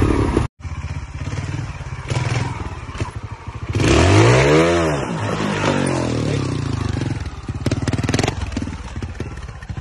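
Trials motorcycle engine running at low revs, with clatter and scraping from the rocky ground. About four seconds in, one sharp rev rises and falls in pitch.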